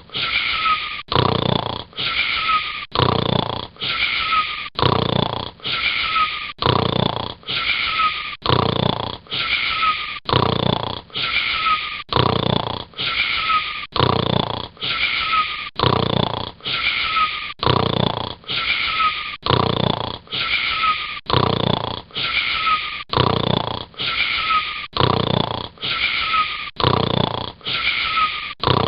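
Snoring: the same snore repeats evenly about once a second, each with a short falling whistle-like tone, like a looped recording.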